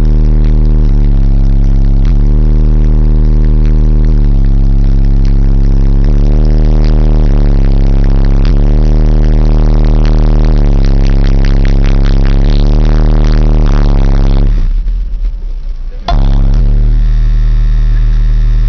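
Six 10-inch Memphis subwoofers, driven by two 4000-watt Memphis mono amplifiers, play deep bass music very loud, a low note pattern repeating about once a second. The bass cuts out for about a second and a half near the end, then comes back.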